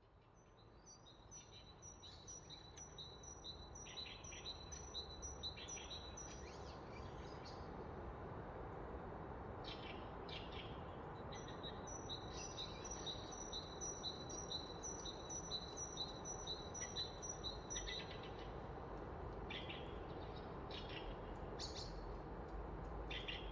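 Songbirds: a high two-note phrase repeated about twice a second for several seconds, heard twice, with scattered short chirps, over a steady hiss of background noise.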